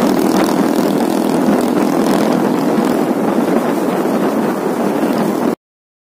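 Motorcycle riding along at speed: a steady mix of engine and wind-and-road noise, cutting off abruptly about five and a half seconds in.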